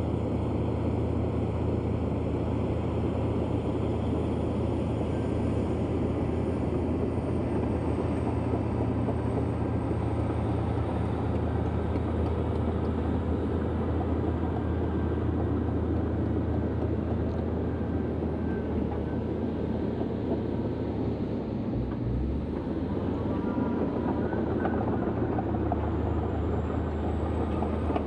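Komatsu D155A bulldozer's diesel engine running steadily under work, with a deep even drone. The low engine note briefly shifts a little past the two-thirds mark.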